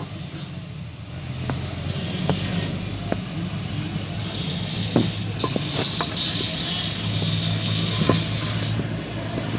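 A vehicle engine running steadily, with scattered sharp clicks and a louder hiss in the middle.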